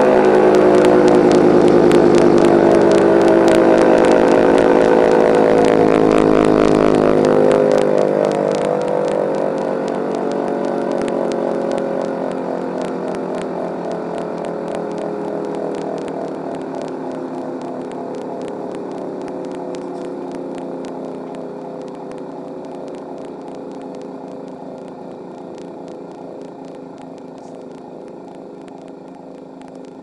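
Federal Signal 3T22 dual-tone siren rotors sounding a chord of several tones. About seven seconds in the motor's power cuts off, and the chord slides slowly down in pitch and fades as the rotors coast to a stop. Under it is a faint steady grinding, which the owner takes for the bearings being due for replacement.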